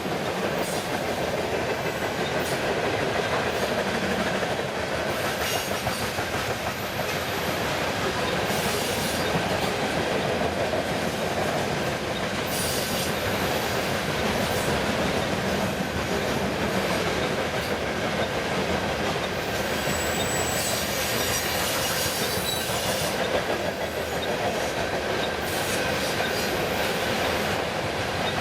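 A freight train's cars rolling past steadily, with wheels clacking over rail joints and a few brief high wheel squeals.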